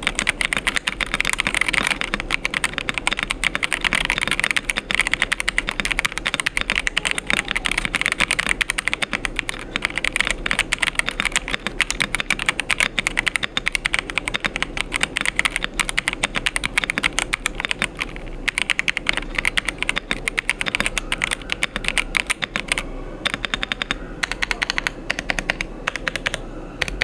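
Ajazz AK650 65% mechanical keyboard with a polycarbonate plate, typed on quickly and continuously: a dense clatter of key strokes that thins out into sparser presses near the end.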